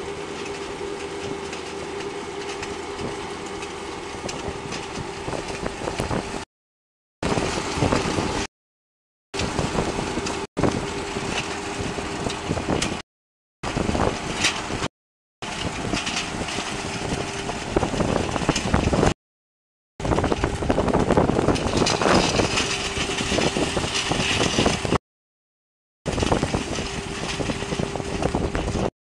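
Skid-steer loader's engine running steadily with a hum, driving a hydraulic rotary disc attachment through loose dirt. The sound cuts out to complete silence about six times, each for under a second.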